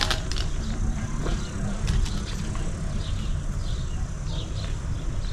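Garden ambience while walking on stone paving: a steady low rumble with footsteps, and small birds chirping in short repeated calls in the trees.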